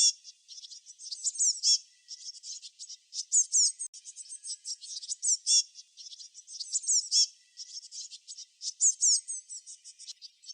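Small songbirds chirping: a dense run of rapid high chirps and quick down-slurred notes, with a louder phrase returning about every two seconds.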